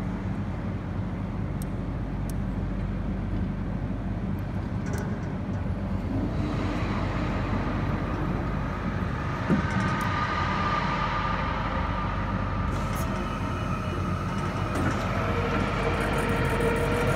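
Battery-electric Raymond swing-reach truck running: a steady low hum, with an electric motor whine that comes in about six seconds in and grows louder near the end.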